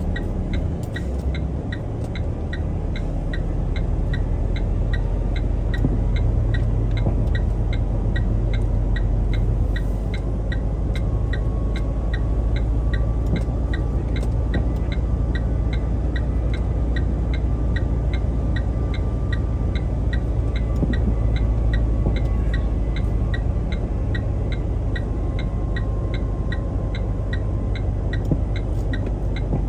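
Truck diesel engine running steadily, heard from inside the cab as a low hum, with a regular light ticking over it.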